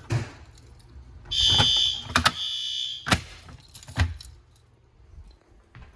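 Fire alarm sounder giving a high-pitched electronic alarm tone in two short blasts with a brief gap between them, about a second in. Sharp clicks and knocks of handling sound around it.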